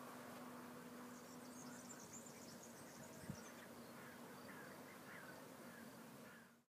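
Faint countryside ambience of insects buzzing, with high chirps coming and going. A single soft thump comes about three seconds in, and the sound cuts off abruptly just before the end.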